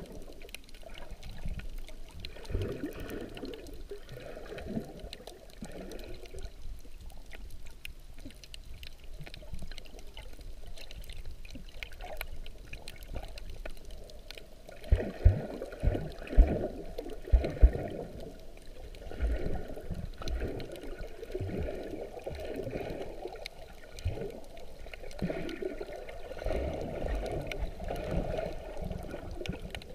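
Water sloshing and bubbling, heard underwater: muffled and low. Several dull thumps come about fifteen to eighteen seconds in, with a few more near the end.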